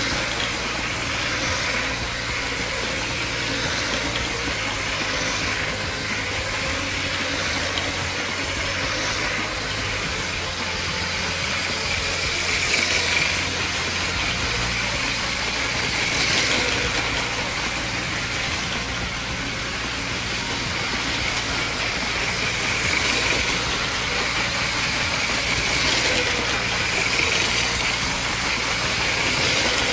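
LEGO 9-volt train motor whirring steadily as the motorised Hogwarts Express runs on plastic track, swelling louder several times as it goes round.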